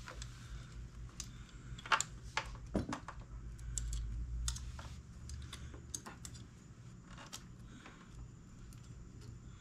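Small metallic clicks and taps of a throttle cable end and carburetor linkage being handled while the cable is fitted to the bell crank. The clicks come irregularly, sharpest about two to three seconds in.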